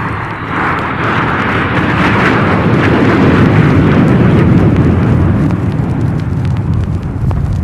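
Loud roar of a military jet aircraft, swelling in over the first second and then holding steady as a heavy rumble with crackle.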